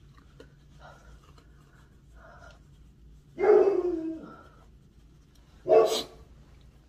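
A woman coughing and breathing hard from the burn of an extremely hot chocolate bar: faint breaths at first, a loud cough with a falling voice a little over three seconds in, and a second short, sharp cough near the end.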